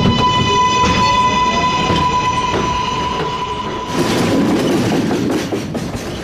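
Subway train pulling away: its electric motor whine, having climbed in pitch, holds one steady high tone with many overtones for about four seconds. It then cuts off and gives way to the rumble and clacking of train wheels on rail.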